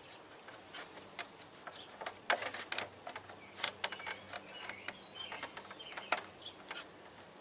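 Scattered light clicks and knocks of hands working the plastic front fender of a Honda GL1500 Gold Wing loose, with a brief flurry of taps about two and a half seconds in.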